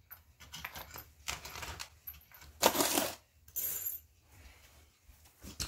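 Steel tire chain and small metal connector links clinking and jingling as they are handled and set down, in a few separate bursts. The loudest comes about two and a half seconds in, followed by a short high metallic ring.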